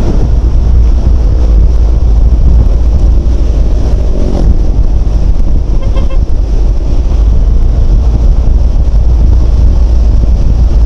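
Wind rushing over the microphone of a rider on a Yamaha NMAX scooter at speed, a loud steady roar with engine and road noise underneath.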